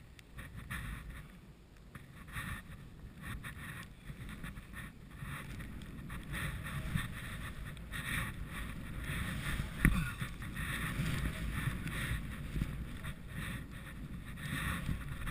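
Skis hissing and swooshing through deep powder snow with wind buffeting the microphone, swelling and fading with the turns. A sharp thump about two-thirds of the way in.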